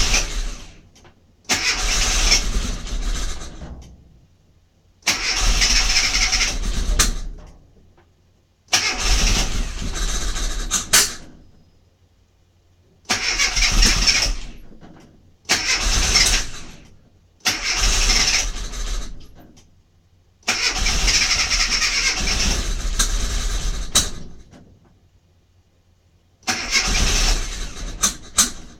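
Rover Mini MPI's 1275 cc A-series four-cylinder being cranked on the starter about nine times in a row, each turn-over lasting one and a half to four seconds with short pauses between. The engine keeps turning over without catching: it won't fire up.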